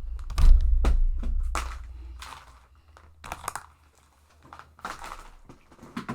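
Takeout food containers and plastic utensils handled close to the microphone as eating starts. A series of short clicks, knocks and rustles, with a heavy low bumping rumble over the first two seconds.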